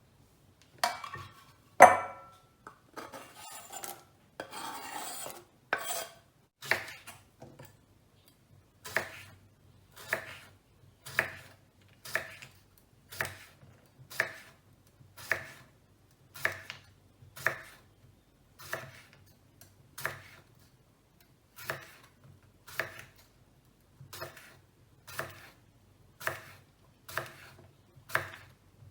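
A kitchen knife slicing vegetables on a cutting board, first an onion and then a cucumber, with a steady cut about once a second. The first few seconds hold some irregular knocking and handling noise before the regular cuts begin.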